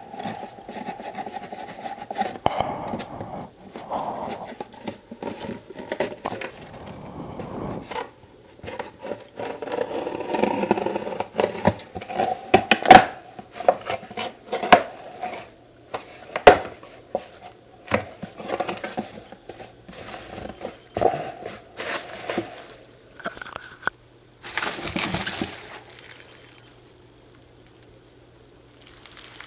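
A cardboard shipping box being opened and unpacked by hand: tearing, crinkling and rustling of the box and its packing, with scattered knocks and scrapes and one longer ripping rasp near the end.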